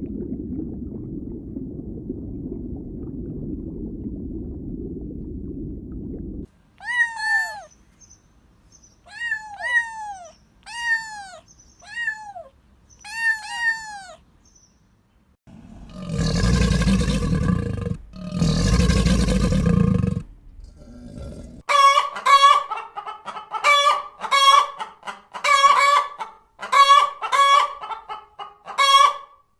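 Chickens calling in a run of short clips: a low rumble first, then a series of short arched calls, two long loud calls of about two seconds each (a rooster crowing), and a quick run of repeated clucks near the end.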